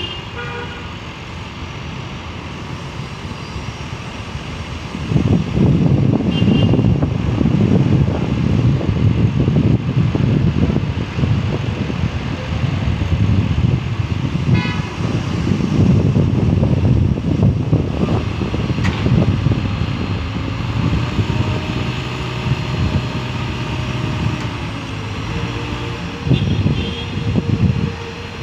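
Heavy diesel engine of construction machinery running, which picks up sharply about five seconds in and keeps working hard with an uneven rumble. Short high beeps sound a few times over it.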